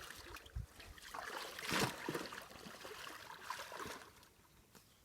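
Water splashing and trickling, with the loudest splash about two seconds in and another near four seconds, then dying down.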